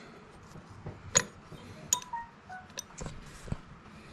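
Light metallic clicks and clinks, about five spread apart, some with a short ring, as steel gears and shafts are handled and seated in an opened Tuff Torq K46 transaxle case.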